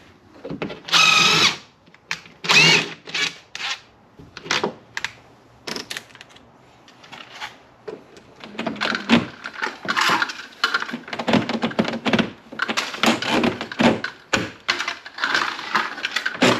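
Cordless drill run in two short bursts, its whine rising and falling, followed by a long run of sharp clicks, knocks and metallic rattles of flexible metal conduit and fittings being handled and fastened.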